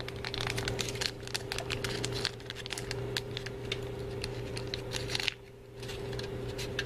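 Crinkling and rustling of a small candy-kit powder packet being handled and emptied, with many light ticks, briefly pausing about five seconds in.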